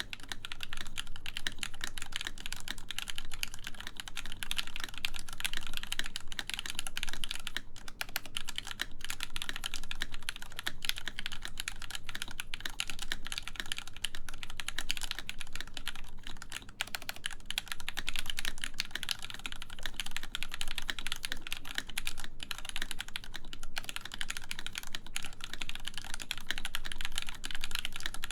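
Continuous fast typing on a full-size mechanical keyboard with lubed Gateron X linear switches in an aluminum plate and MW Retro Lights keycaps, with dense, even keystrokes and a few brief pauses.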